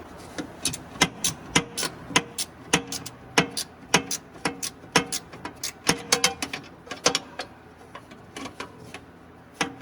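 Hand ratchet clicking in a steady run of sharp metallic clicks, about two a second, as exhaust clamp nuts are tightened on a Kenworth T800 exhaust. The clicks thin out and soften after about seven seconds as the nuts come snug.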